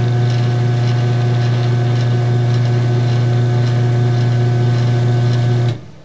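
Craftsman half-horsepower garage door opener motor running steadily with a low hum, driving the opener through its open cycle, then cutting off abruptly near the end.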